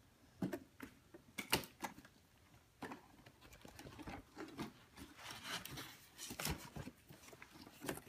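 A cardboard toy box being opened by hand: its flaps are pulled up and scrape, with a few light knocks early on and soft rustling and handling in the second half.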